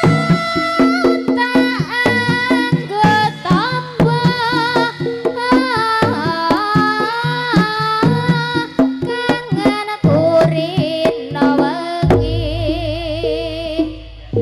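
Live East Javanese jaranan music: quick hand-drum (kendang) strokes under a high, wavering melody line, with a deep sustained low note coming in about twelve seconds in.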